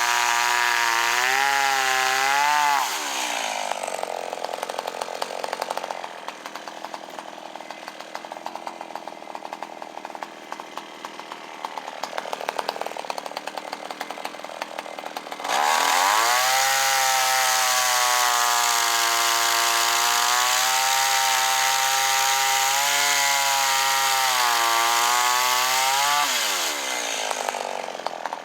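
Kyoritsu CS-362 chainsaw's two-stroke engine running, the saw working again after its no-spark ignition fault was repaired. It runs at high speed, drops to idle about 3 seconds in, is throttled back up at about 15 seconds, and drops to idle again near the end.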